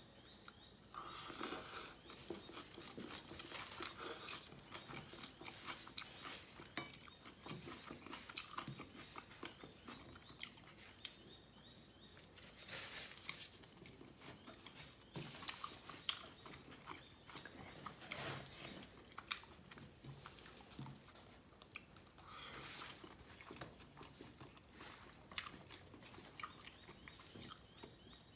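A person chewing and eating food close to the microphone: irregular wet mouth sounds with many small sharp clicks and occasional crunches.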